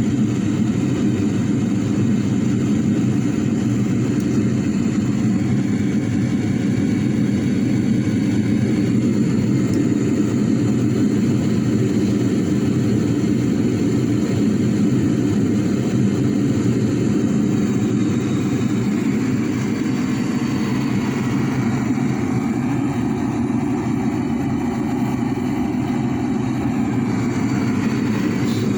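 Aerated concrete furnace firing for the first time: a loud, steady, low rushing noise that eases slightly about two-thirds of the way through.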